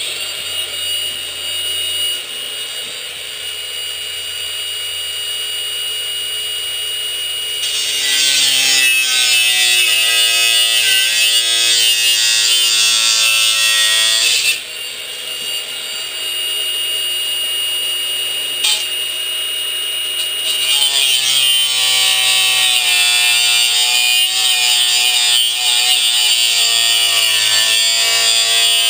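Electric grinder with a cutting wheel, whining high as it spins free, then cutting into sheet metal twice. During each cut, about 8 seconds in and again from about 21 seconds in, it gets louder and harsher and its pitch drops under the load.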